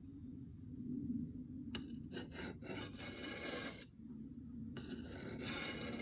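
Billhook blade being drawn across a sharpening stone in long, repeated scraping strokes.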